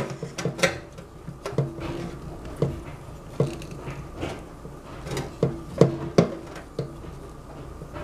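Silicone spatula scraping chocolate mousse around a small stainless steel pot, knocking irregularly against the metal. Some knocks leave the pot ringing briefly.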